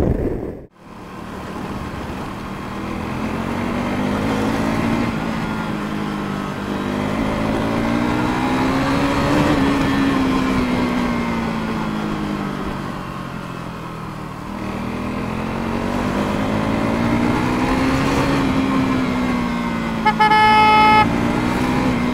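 Motorcycle engine running under way, its pitch rising and falling slowly twice as the rider speeds up and eases off. A vehicle horn honks for about a second near the end.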